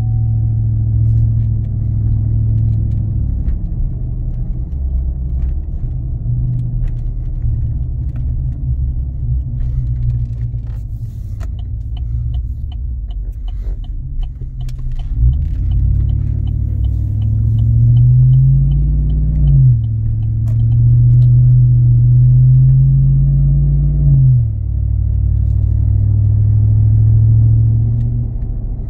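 Pickup truck's V-engine exhaust through true dual Carven R mufflers dumped ahead of the rear wheels, heard from inside the cab while driving: a loud, low drone. The pitch climbs as the truck pulls, then drops sharply twice in the second half as it shifts up. A faint steady ticking runs for several seconds midway.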